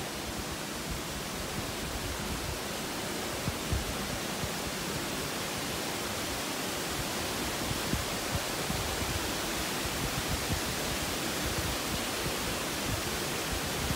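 Steady rushing of canal water as a slow horse-drawn canal boat passes through a wooden aqueduct, with a few faint knocks.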